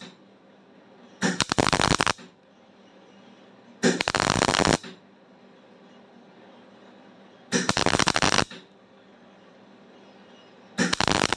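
MIG welder arc crackling in four short bursts of just under a second each, a few seconds apart, as a mild-steel bead is built up on the end of a broken stud so it can be gripped and turned out.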